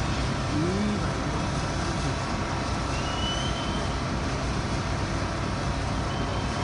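Steady construction-site din of heavy machinery engines running, with a faint distant shout about half a second in.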